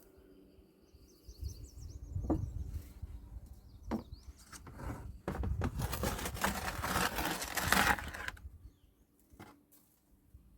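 Crushed ore and gravel being sifted through a mesh screen: irregular rattling and scraping with a couple of sharp knocks, loudest from about five to eight seconds in.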